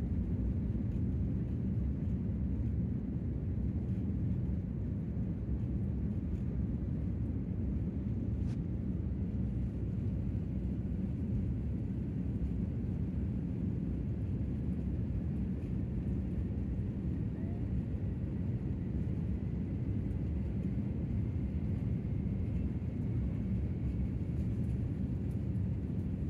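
Cabin noise of an Airbus A350-1000 on its takeoff roll, heard from an economy seat: the Rolls-Royce Trent XWB engines at takeoff thrust make a steady deep rumble. A faint high whine creeps up in pitch through the second half.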